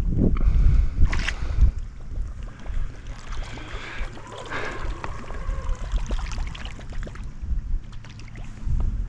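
Wind buffeting the microphone on an open fishing boat, with water splashing and lapping; the heaviest gusts and a sharp splash come in the first two seconds, then it settles to softer water sounds.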